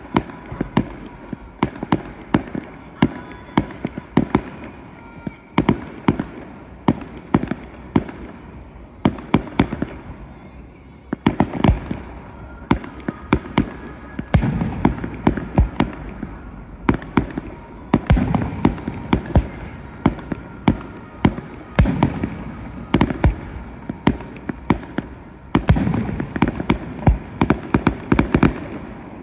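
Fireworks display: a rapid, unbroken string of sharp bangs from bursting aerial fireworks, several a second, thickening into louder clusters in the second half.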